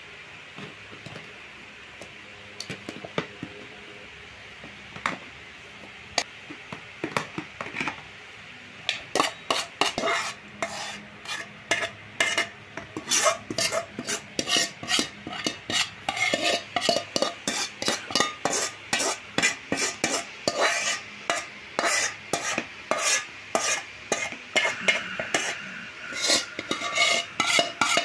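Metal spoon scraping and knocking against a metal bowl, scooping oily pickle out into a plastic jar: a few scattered knocks at first, then from about nine seconds in a quick run of scrapes, about three a second.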